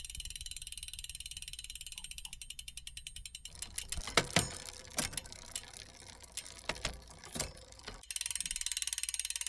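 Mechanical clicking sound effect of an animated logo intro: rapid, even ratchet-like ticking, then a string of separate sharp clicks and clacks midway, then rapid ticking again near the end.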